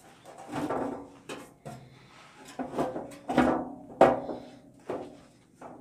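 Metal clanks and knocks from parts being handled and fitted on a Craftsman contractor table saw's cast-iron table during reassembly. There are about six knocks, several of them followed by a short metallic ring.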